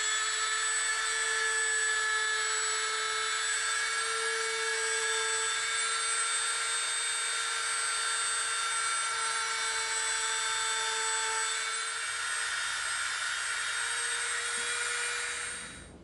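Dremel rotary tool running at high speed, its bit grinding a trench into a foam dowel: a steady high-pitched whine that cuts off sharply just before the end.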